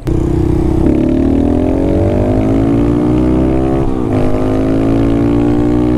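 Honda Monkey's single-cylinder engine running through an unbaffled Yoshimura RS-3 exhaust, accelerating hard. The pitch climbs steadily, drops sharply at a gear change about four seconds in, then climbs again.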